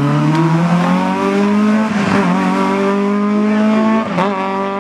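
Rally car engine under hard acceleration, its pitch climbing steadily, with a short break about four seconds in.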